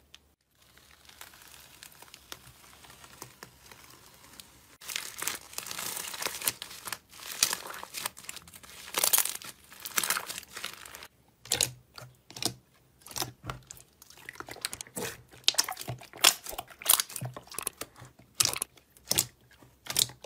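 Slime covered with a printed paper sheet being pressed and kneaded by hand, giving paper crinkling and crackling. It starts faint, grows dense and louder about five seconds in, and from about halfway breaks into separate sharp crackles and pops, roughly two a second, as the slime is squeezed and pulled.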